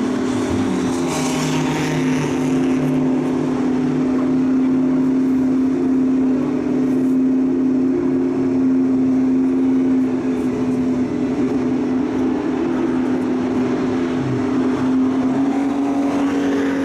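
Car engine running at steady revs, a constant droning note that holds its pitch, shifting slightly near the end.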